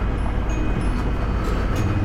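Honda Africa Twin's parallel-twin engine running steadily at cruising speed, with tyre noise on gravel. There are a few sharp knocks about one and a half seconds in as the wheels cross a steel cattle guard.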